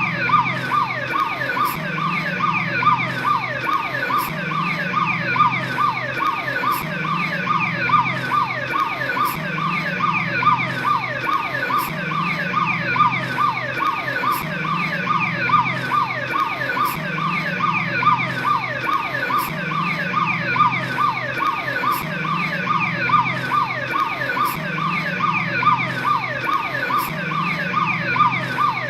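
Police patrol car siren sounding continuously in a fast yelp: short falling sweeps in pitch repeated in quick succession without a break.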